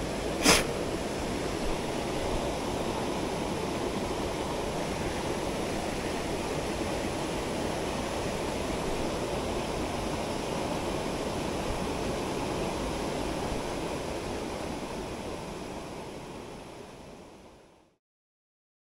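Headwater mountain stream rushing steadily, fading out over the last few seconds. A short knock about half a second in.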